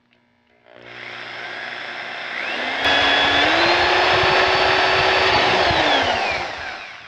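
Corded electric drill with a 1/4-inch bit boring a vent hole through a rocket body tube. The motor starts, speeds up with a rising whine about two seconds in, runs steadily, then winds down near the end.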